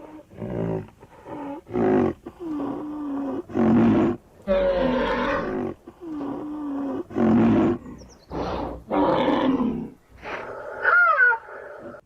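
Rhinoceros calling: a series of about nine loud, low calls in quick succession, some held at a steady pitch, then a higher wavering call near the end.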